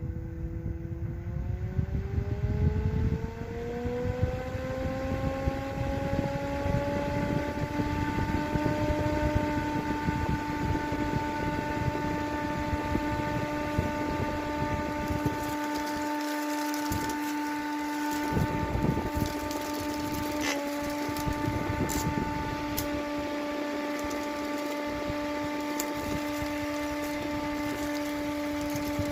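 Small 12 V DC motor of a homemade table fan starting up: its whine rises in pitch over the first several seconds, then holds steady at full speed. A rough rumble sits under it at first, and a few light clicks come later on.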